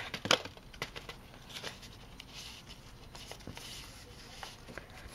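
A CD album's case, booklet and paper inserts being handled: soft paper rustling and scattered small clicks, the sharpest about a third of a second in.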